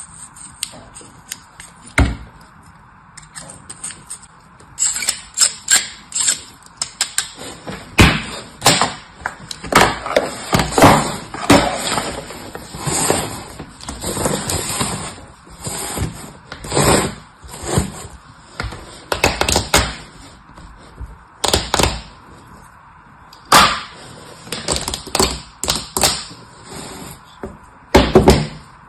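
Kinetic sand scraped quietly at first. Then, from about five seconds in, an irregular string of knocks and thuds as plastic sand molds are set down and tapped on a tabletop.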